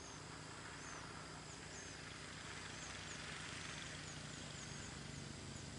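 Faint open-air ambience: small birds chirping in short, high calls, several a second, over a steady low hum and hiss.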